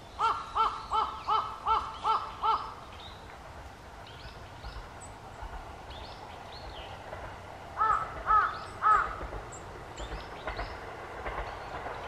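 Black woodpecker calling: a rapid series of seven loud, harsh calls at about three a second, then three more after a pause of about five seconds. Faint high chirps from small birds can be heard in between.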